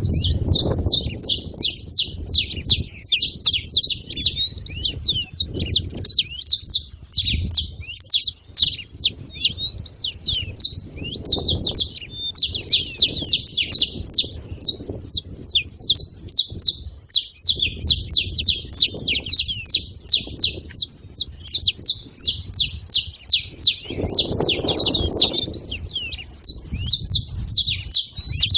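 A flock of saffron finches chirping and chattering constantly, many rapid high chirps overlapping. A low rumble comes and goes underneath.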